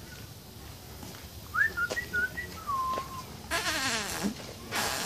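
Short whistling: a few quick rising and stepping notes, then a longer note that dips slightly, followed by a louder sliding call that falls in pitch.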